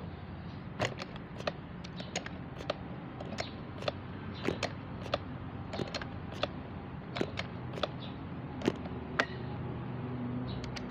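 Irregular sharp clicks and light creaks, about twenty of them, from handling the uklik air rifle and its scope, over a steady low background.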